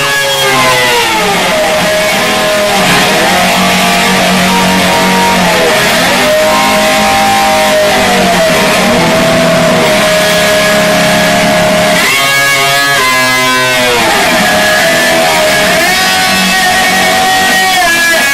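Electric slide guitar imitating a motorcycle revving: sliding pitches that fall and climb again and again between held notes.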